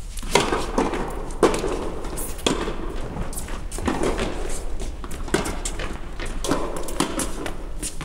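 A tennis rally: tennis balls struck by racquets, among them an extended 29-inch Yonex VCore Duel G, and bouncing on a hard court, with footsteps between the hits. The hits come as sharp cracks at uneven intervals, each echoing briefly in a large indoor hall.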